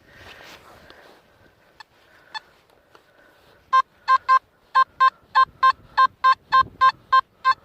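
Metal detector beeping in short, even pulses about three times a second, starting about four seconds in: it is signalling a metal target still in the dig hole. A little faint scraping and a couple of light ticks come before the beeps.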